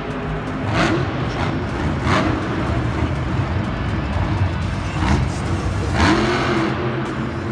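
Monster truck engine revving up and easing off several times as the truck lands and drives across the dirt, with a rise and fall in pitch about six seconds in.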